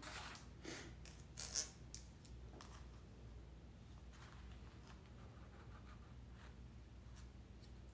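Pencil scratching on a stretched canvas as lines are drawn and measured against a ruler: a few short strokes in the first two seconds, then only faint scratching.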